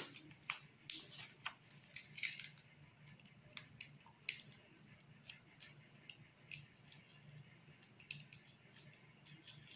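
Tape being peeled off a rolled canvas by hand: a scatter of small, faint clicks and crackles.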